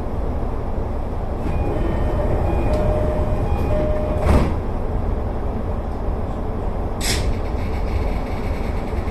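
Electric commuter train running on rails, a steady rumble from the front of the train. A faint whine sits over it in the first half, a sharp knock comes a little after four seconds in, and a short hiss about seven seconds in.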